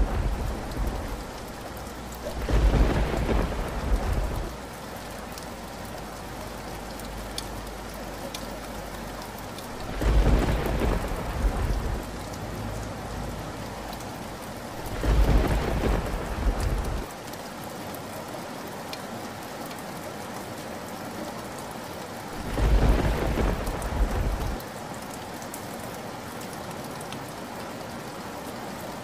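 Thunderstorm: steady rain with four loud rolls of thunder, each about two seconds long, breaking over it at intervals of five to eight seconds.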